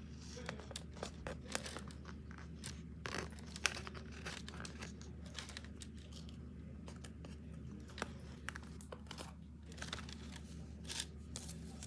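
Crinkling and crackling of material being handled and torn by hand, with many irregular small clicks, over a steady low hum.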